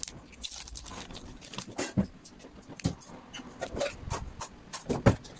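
Scattered clicks and knocks of a key-opening corned beef tin being handled as its opening key is fitted to the tin's tab, with a louder knock near the end.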